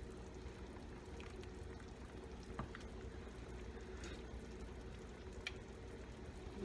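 Pot of chicken soup simmering on the stove: a faint, steady bubbling with a low hum under it and a few light clicks.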